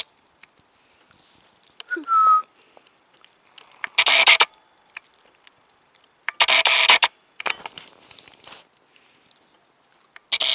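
A short whistled note about two seconds in, then four short breathy bursts of noise about half a second each, with quiet between them.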